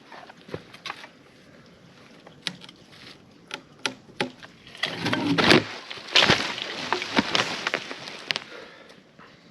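Sharp cracks and snaps of splitting wood, then two louder crashing rushes about five and six seconds in, as a partly cut tree trunk gives way and comes down.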